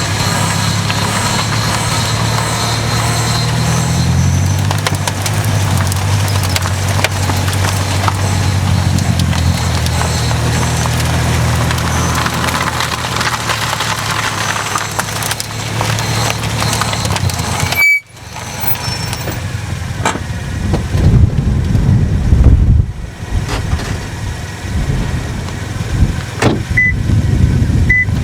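Toyota Vitz driving with a steady low drone, the abnormal noise that the owner suspects comes from a wheel hub. About two-thirds of the way through the sound cuts off suddenly and gives way to uneven low rumbling with a few loud surges.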